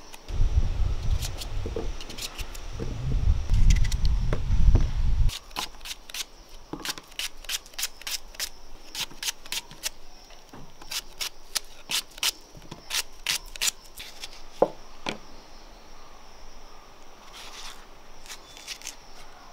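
Kitchen knife cutting raw vegetables held in the hand, raw papaya, red onion and green chilli, with many short sharp clicks as the blade snaps through. A loud low rumble covers the first five seconds.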